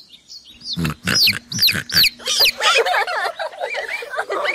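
Farm animal calls: a quick run of high, falling chick peeps mixed with pig oinks and squeals, starting about a second in.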